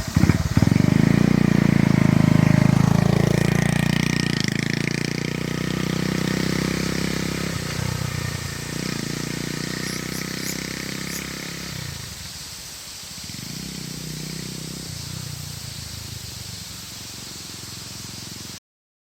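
Honda Monkey 125's single-cylinder engine running just after starting, its revs dropping and rising several times as the throttle is worked, then growing gradually quieter before the sound cuts off suddenly near the end.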